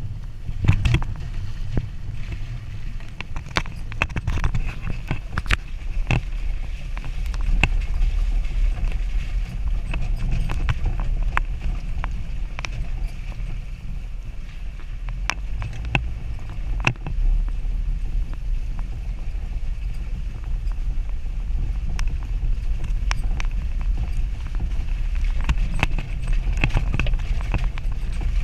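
Jeep Wrangler driving slowly over a rough dirt trail: a steady low engine rumble with frequent irregular knocks and rattles as the vehicle jolts over the ruts.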